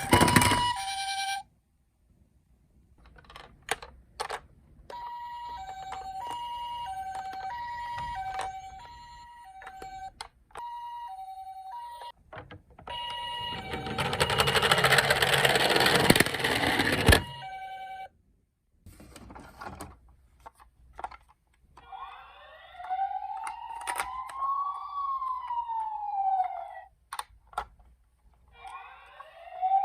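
Toy ambulance minicar's electronic two-tone siren, the Japanese ambulance 'pee-po', alternating between a high and a low tone about every half second. In the middle a loud rushing noise runs for a few seconds, with scattered clicks in the gaps. Later a toy police car siren wails, rising and falling in pitch, then starts to rise again near the end.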